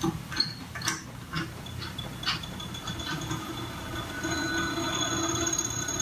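Magnetic stir plate starting with a stir bar in a beaker: a few clicks and knocks in the first couple of seconds, then a steady whine of the spinning stirrer that grows a little louder.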